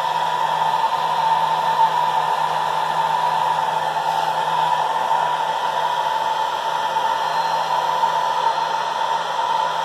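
Handheld hair dryer running steadily, blowing on a dog's wet coat: an even rush of air over a steady low motor hum.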